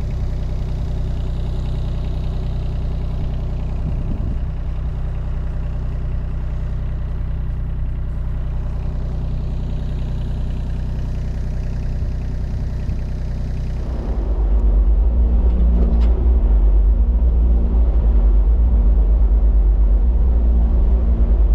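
Telehandler's diesel engine running steadily while the machine is driven, turning louder and heavier about fourteen seconds in.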